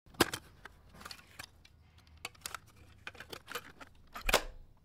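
Irregular small clicks and taps, with a sharp knock about a quarter-second in and another near the end.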